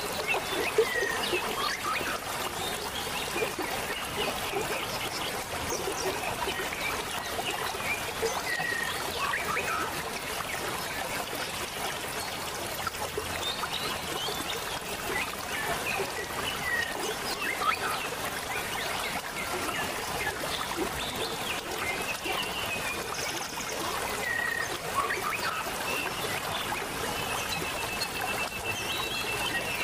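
Small waterfall trickling and splashing steadily, with scattered bird chirps over it and a rapid trill near the end.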